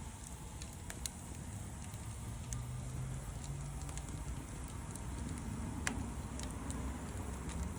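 Wood fire crackling, with scattered sharp pops, over a low steady rumble.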